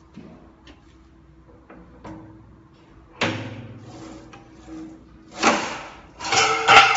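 Hand-pushed shear attachment running along the clamp bar of a Magnabend electromagnetic sheet metal brake, cutting a sheet of steel with a harsh metallic scraping and ringing, in two strokes in the last two seconds. A sudden metallic clunk about three seconds in.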